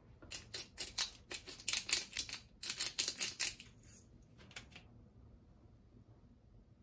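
Hand-twisted pepper mill grinding peppercorns: a quick run of crunchy clicks, about four or five a second, for about three seconds, with a couple more a second later.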